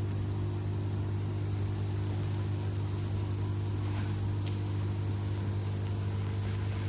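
Steady low hum with several evenly spaced tones, unchanging in level.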